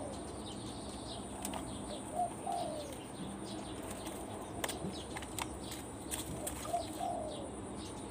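Spotted doves in a cage: a flurry of wing flaps as the courting pair tangle together, with a few soft, short downward-gliding coo notes, twice in pairs. Faint high chirps of small birds sound throughout.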